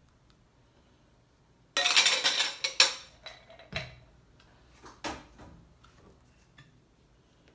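Ice cubes clattering into a stemmed wine glass in a quick rattling burst, followed by a few separate sharp clinks of ice against the glass.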